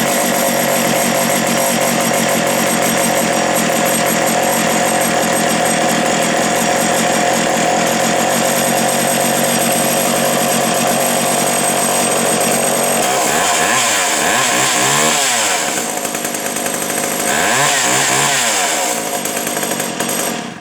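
Pioneer 3270 77cc two-stroke chainsaw running steadily at high speed, then revved up and down twice near the end before cutting off.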